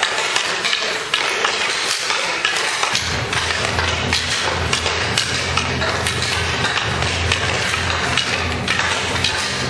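Ice hockey practice on a rink: a steady clatter of pucks and sticks striking one another and the boards over the continuous scraping hiss of skates on ice. A steady low hum sets in about three seconds in.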